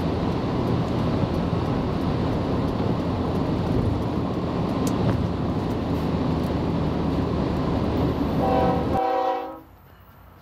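Steady tyre and wind noise of a car driving on a highway. Near the end a diesel freight locomotive's air horn sounds a multi-tone chord for about a second, and then the noise drops to a low background.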